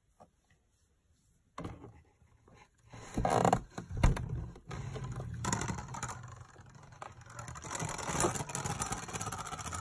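A red Beyblade spinning top spinning and scraping on the plastic floor of a Beyblade stadium. The rough scraping starts about a second and a half in and goes on unevenly, with a few louder knocks between three and four seconds in.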